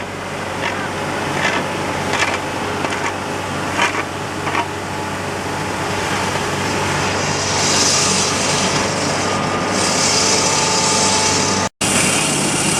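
Diesel engine of a JCB backhoe loader running steadily, with a few sharp knocks in the first five seconds and a strong hiss joining from about seven seconds in.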